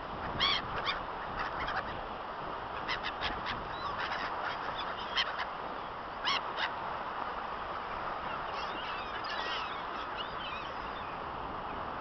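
A flock of gulls calling overhead: short, sharp calls, several in quick succession through the first seven seconds, then fainter chattering calls, over a steady hiss.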